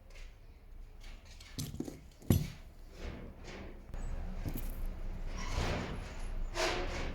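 Small metal parts and tools clinking and knocking, with one sharp knock about two seconds in.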